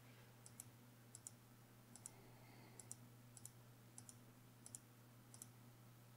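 Faint computer mouse clicks, each a quick double tick of press and release, about eight in a row at a steady pace of roughly one every two-thirds of a second, over a low steady hum.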